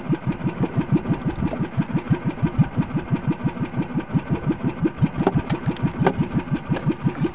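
Small outrigger fishing boat's engine idling with a steady, even beat of about five or six pulses a second. A few faint clicks near the end.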